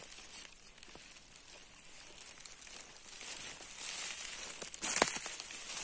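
Rustling and crackling of someone moving through forest undergrowth and leaf litter, faint at first and growing louder, with a sharp crack about five seconds in.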